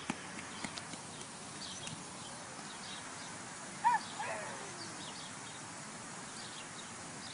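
Outdoor ambience with small birds chirping, a few light footsteps patting on wet pavement in the first second, and a short, high two-part call about four seconds in, the second part gliding down.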